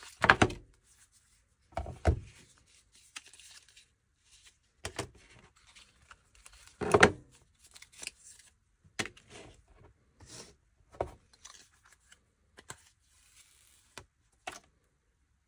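Rustling and light tapping of cardboard and paper packaging as a new iPhone's box insert, paper-wrapped USB-C cable and paper screen cover are handled, with a few louder knocks near the start, about two seconds in and about seven seconds in.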